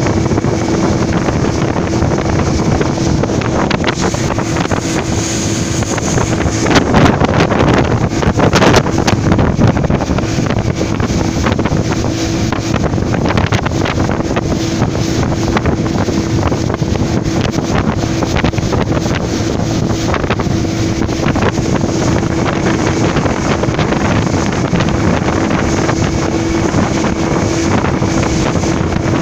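Open motorboat's engine running steadily at speed, with water rushing against the hull and wind buffeting the microphone. It swells louder for a couple of seconds about seven seconds in.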